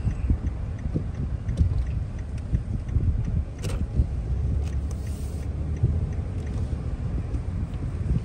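Low, steady rumble of a car's engine and tyres heard from inside the cabin while driving slowly in traffic, with a small click near the middle.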